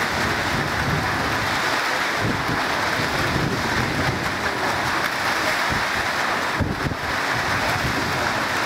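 Steady rain pattering close to the microphone, with wind buffeting the microphone underneath.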